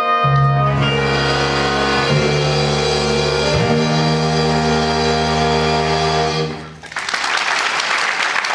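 School jazz band, with saxophones, brass, piano and rhythm section, holding a long final chord while the bass notes shift beneath it, cut off together about seven seconds in. Audience applause follows.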